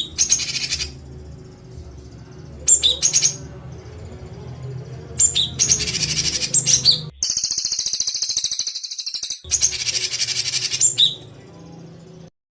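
Songbird song of the harsh, rapid 'tembakan kasar' kind: short bursts of fast, high chattering notes repeated with pauses of a second or two, with one longer, denser burst in the middle. A low hum runs under it, and the sound cuts off abruptly near the end.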